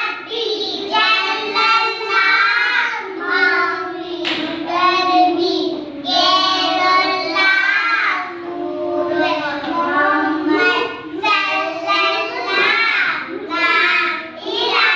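A small group of young girls singing together in unison, in phrases with short breaks for breath between them.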